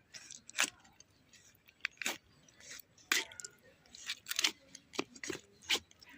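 A string of about ten irregular sharp clicks and scrapes, the sound of handling and cutting during food preparation.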